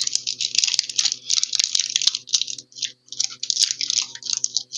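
Foil Pokémon booster pack wrapper crinkling and tearing as it is opened by hand, a run of irregular crackly rustles and clicks.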